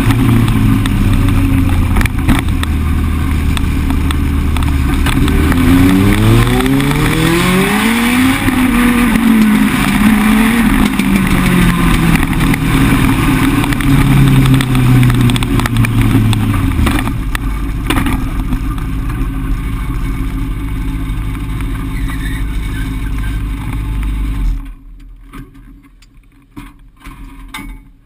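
Legend race car's four-cylinder Yamaha motorcycle engine heard from inside the cockpit: it revs up steeply, then drops back and runs on at part throttle, easing off again partway through. Near the end the engine sound falls away sharply, leaving only faint rattles.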